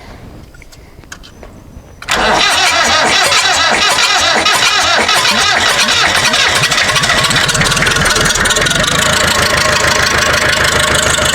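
The freshly rebuilt engine of an International Harvester 444 tractor being started. It comes in suddenly and loudly about two seconds in and keeps going steadily, with a fast even pulsing.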